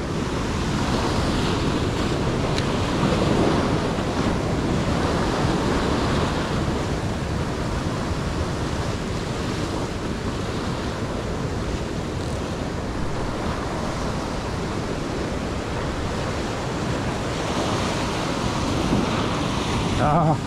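Ocean surf washing and breaking against a rocky shoreline, a steady rush of water with a few louder swells.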